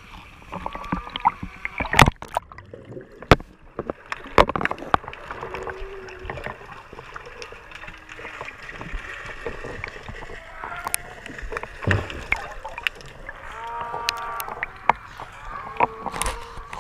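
South American sea lions calling in the water around the camera: short pitched barks and moans, with a run of several calls about fourteen seconds in, heard partly underwater. Water splashes and sharp knocks against the camera come and go throughout.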